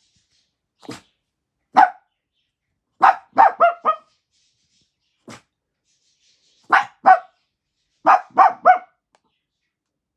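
A dog barking, about a dozen barks in all, singly and in quick runs of two to four, with short silent gaps between them. A couple of the barks are fainter.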